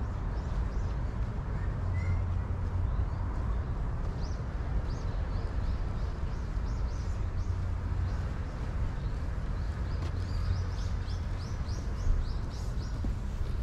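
Small birds chirping in quick runs of short, high notes over a steady low rumble of city traffic.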